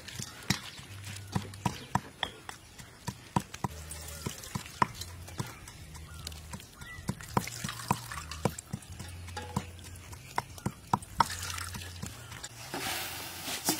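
Hands squeezing wet grated coconut in a steel bowl, with repeated squelches and drips. Near the end, coconut milk pours and trickles through a plastic strainer into the bowl below.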